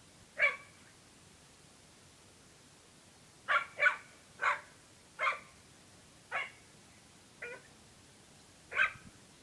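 Dog barking in short, sharp barks: a single bark, then after a pause a run of seven more about a second apart, as it squares off with a goose.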